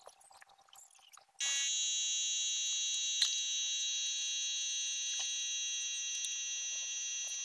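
Paint-spraying equipment switching on about a second and a half in and then running with a steady, high, buzzing drone.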